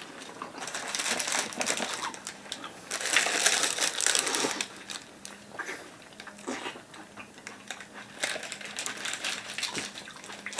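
Eating sounds: bites into a whole raw tomato and a shawarma, with chewing and crinkling of the shawarma's paper wrapper. The loudest stretches come about a second in and again from about three to four and a half seconds in; after that there are only fainter scattered clicks.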